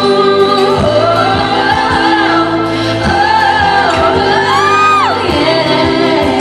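A woman singing a slow pop ballad live over sustained instrumental accompaniment, with one high note sliding up and held near the end before it drops away sharply.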